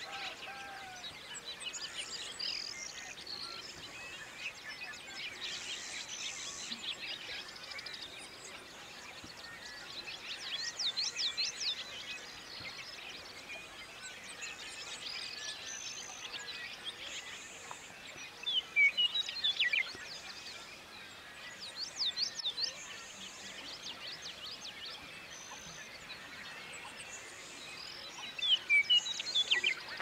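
Morning chorus of many different birds singing and calling over one another, with louder runs of rapid, repeated chirps about ten, nineteen, twenty-two and twenty-eight seconds in.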